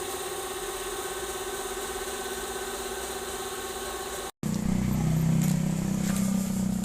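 Nissan Patrol's ZD30 four-cylinder turbo-diesel idling steadily, then cut off abruptly a little over four seconds in, followed by a louder, lower hum with a few clicks.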